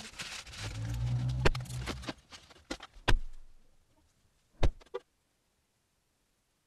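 Sped-up sound inside a parked car: a brief low hum and a run of sharp clicks and knocks, the loudest about three and four and a half seconds in, then it cuts to silence about five seconds in.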